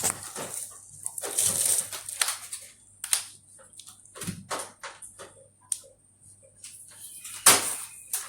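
Irregular clattering knocks mixed with short scraping and rubbing sounds, the loudest knock about seven and a half seconds in.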